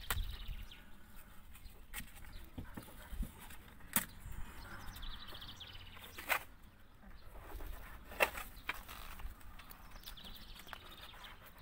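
A handful of sharp knocks and taps as a plastic channel strip is pressed and fitted along a motorhome's overcab bodywork, with faint high chirping in between.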